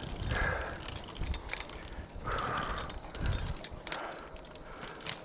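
Heavy, laboured breathing of a tower climber on a steel ladder, a deep breath roughly every second, with clicks and clinks of climbing gear and metal hardware in between.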